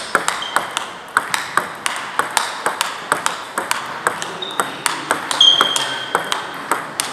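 Table tennis balls clicking off bats and tables in a quick, irregular patter, with rallies on several tables overlapping. A few short high squeaks sound among the clicks.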